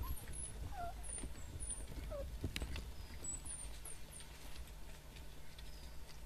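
A few short squeaks from African wild dog pups in the first two seconds, with faint high chirps scattered through and a single sharp click about two and a half seconds in, over a low steady rumble.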